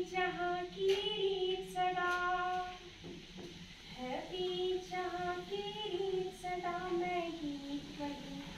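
A young woman singing solo and unaccompanied, in long held notes, with a short break about three seconds in.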